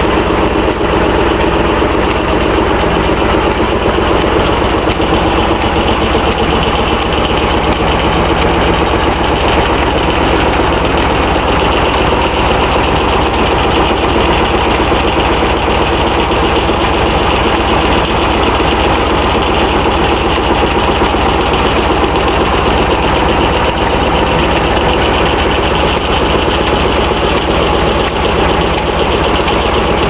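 Circular sawmill running without a cut: its drive and blade give a steady, unchanging mechanical drone.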